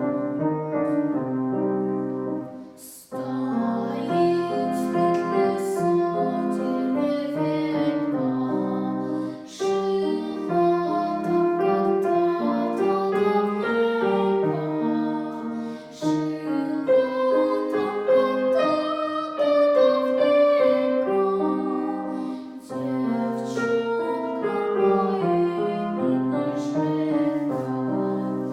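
A girl singing a song over piano accompaniment.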